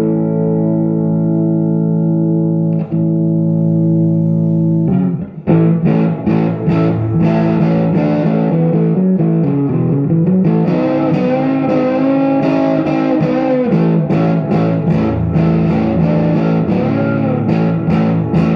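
Electric guitar, a Silvertone 1413 with a Kay pancake pickup, played through a small tube amplifier with spring reverb into a 1957 Jensen P12Q speaker in a 1x12 cabinet. A chord is held ringing for about five seconds, then the playing turns to picked notes and chords with string bends, lightly overdriven with a bit of grit.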